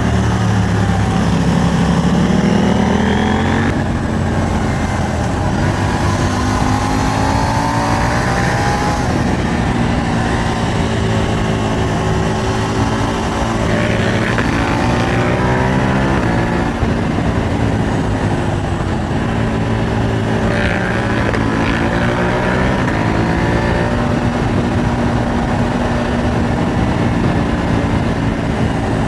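KTM 890 Duke R's parallel-twin engine under way, its revs climbing and dropping several times as it is run up through the gears and shifted, with steady wind rush.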